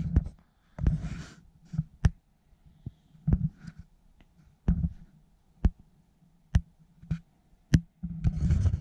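Handling noise: scattered sharp clicks and short rustles at irregular intervals, over a faint steady hum.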